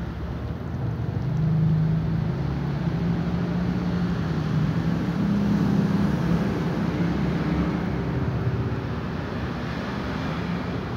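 A steady low hum of an engine or motor over a background of noise, growing louder about a second and a half in, its pitch drifting slightly upward.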